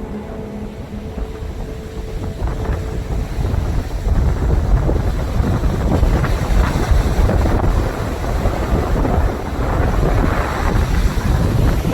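Strong wind blasting the microphone: a gusty, rumbling noise, heaviest in the low end. It grows louder about four seconds in.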